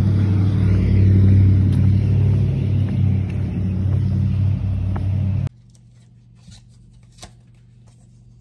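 Steady low mechanical rumble with a deep hum, cutting off suddenly about five and a half seconds in, then a few faint clicks.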